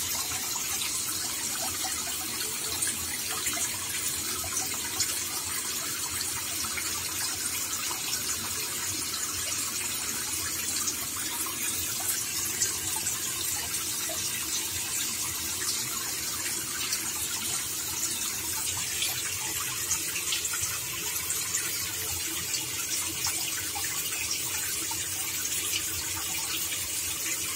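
Water falling steadily onto the surface of a fish breeding tank: a continuous splashing hiss full of tiny clicks.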